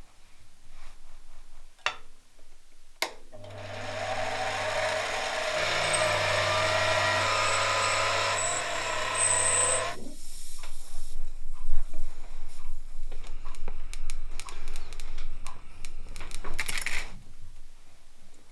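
Air blowpipe blowing its jet through a candle flame: a steady hiss over a motor hum, starting about three seconds in and stopping about seven seconds later. It is followed by a run of small sharp clicks and taps from handling small parts.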